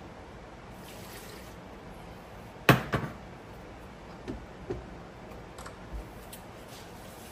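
A sharp knock, with a softer one right after it, about two and a half seconds in, then a few light taps: hard objects being handled.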